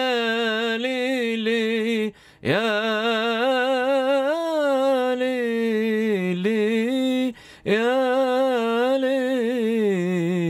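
A man singing unaccompanied a melismatic 'ya leili' vocal improvisation (layali) in maqam nahawand: long held notes with wavering ornaments in three phrases, twice breaking off briefly for breath, each phrase sinking to a lower note at its end.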